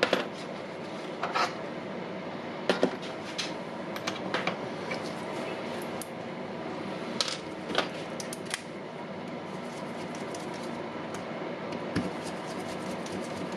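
Irregular small clicks and taps of a screwdriver and screws as the housing of a cordless impact wrench is screwed back together, over a steady background hum.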